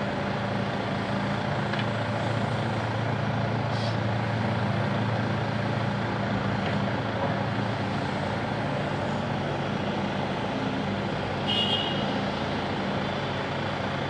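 Diesel engine of a Hitachi Zaxis 170W wheeled excavator running steadily as it swings its boom, with a Mercedes Actros dump truck's engine idling alongside. A short high squeal comes a couple of seconds before the end.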